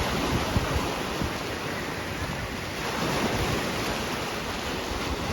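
Sea waves washing steadily onto the shore, with wind buffeting the microphone in uneven low rumbles.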